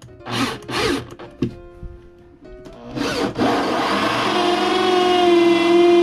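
Corded electric power tool cutting in and out in short bursts, its motor starting and stopping, the sign of a loose electrical contact. From about three seconds in it keeps running, with a steady whine that grows louder.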